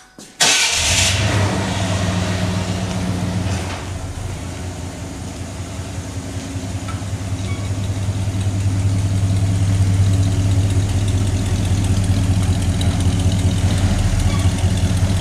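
Ford 351 high-output V8 in a pickup, fitted with a new exhaust and MagnaFlow muffler, starting about half a second in and then idling steadily through the pipes, growing louder from about halfway through.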